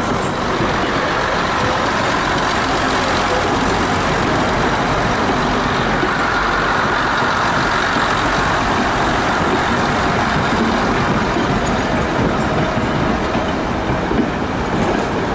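First-generation diesel multiple unit's underfloor diesel engines running steadily as the railcars roll past.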